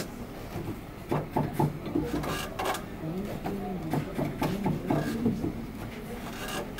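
Hand-knotting a carpet on a wooden loom: irregular light clicks, taps and rustles of the warp threads and a small knotting tool, with people talking at the same time.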